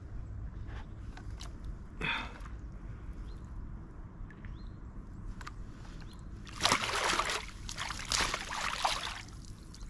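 Water splashing as a hooked fish thrashes at the surface and is scooped into a landing net, with two loud bursts of splashing in the last few seconds.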